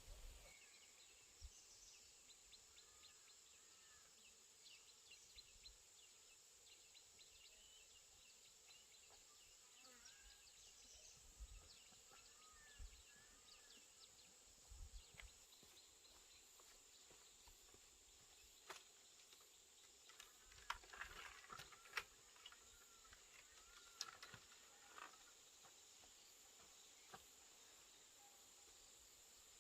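Near silence: faint outdoor ambience with a steady high insect drone, scattered soft bird chirps and a few light clicks.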